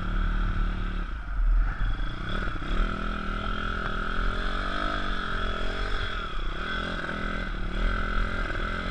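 160 cc single-cylinder four-stroke pit bike engine running hard as it is ridden through mud, its pitch rising and falling with the throttle.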